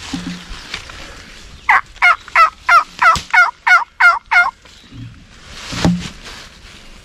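Wild turkey yelps: a run of nine loud, evenly spaced notes, about three a second.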